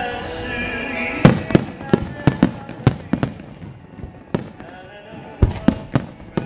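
Starmine fireworks barrage: a rapid, irregular series of sharp shell bursts, the loudest about a second in.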